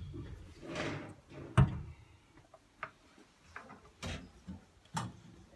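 Scattered knocks and clicks of handling, the loudest a single sharp knock about a second and a half in, after a short rustle; a few lighter clicks follow.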